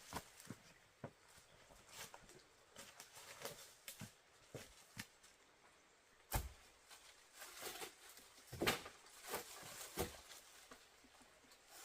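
Irregular light taps, clicks and knocks of hand-work and handling, with a sharper knock about six seconds in and a busier cluster of knocks near the end.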